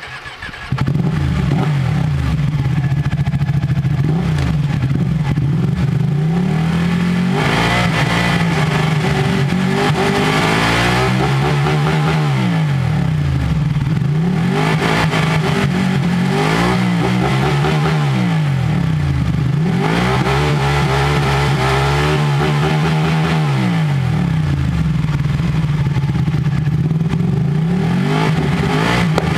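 Ducati 1199 Panigale's Superquadro L-twin revving hard through the gears. The pitch climbs in steps as the semi-automatic quickshifter cuts the ignition for each upshift, then falls back with throttle blips on the downshifts. The engine comes up loud about a second in, and the climb-and-fall repeats several times.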